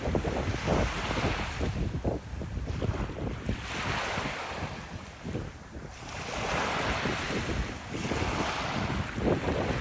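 Sea waves washing up a beach, the surf's hiss swelling and fading several times, with wind buffeting the microphone as a constant low rumble.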